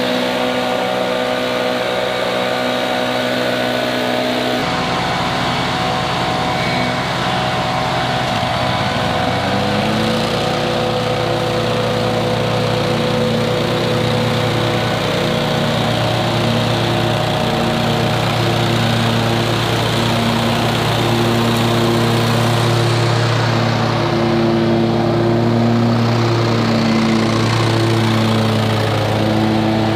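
Lawn mower engine running steadily under load. The engine note changes about five seconds in, then climbs to a higher steady pitch near ten seconds and holds there.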